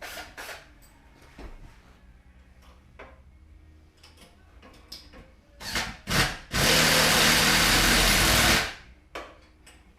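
Handheld power tool blipped twice, then run steadily for about two seconds before stopping, amid small clicks and knocks of parts being handled.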